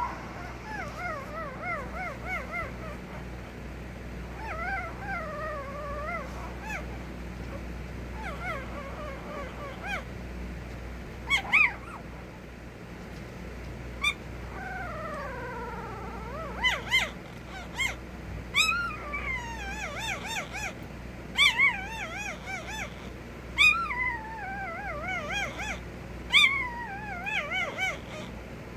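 A puppy whining and whimpering in wavering high-pitched cries. About halfway through comes a long, falling, howl-like cry, and in the second half the cries turn into sharper short yips and squeals.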